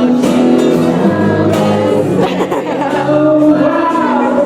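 A pop band singing live, several voices together holding sung notes.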